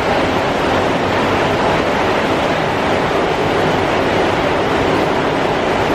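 Heavy rain pouring down, a loud, steady hiss with no let-up.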